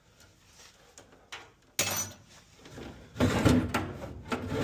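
Scraping and clunking of sheet-metal furnace parts being handled, with a sudden scrape about two seconds in and a louder rough clatter a second later.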